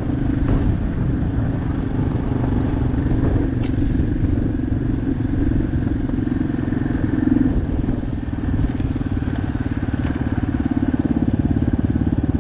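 Motorcycle engine running steadily at riding speed on a gravel road, easing off briefly about two thirds of the way in.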